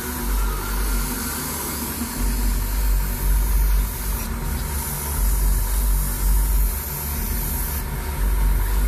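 Airbrush hissing as it sprays paint, with a brief break about four seconds in and another near the end, over a low steady rumble.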